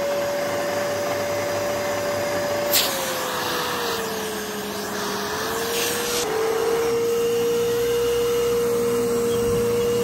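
Hoover Pure Power 1500 W bagged upright vacuum cleaner running, a steady motor whine. About three seconds in there is a click and the motor's pitch sags, then steps back up about six seconds in and holds steady.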